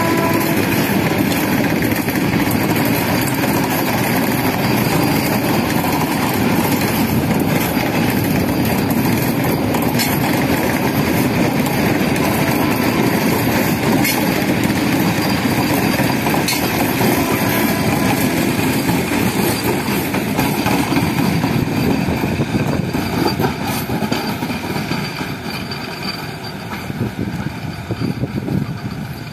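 Vande Bharat Express electric train set passing close by at speed: a steady rumble of wheels on rail with a few sharp clicks, fading from about three-quarters of the way through as the train draws away.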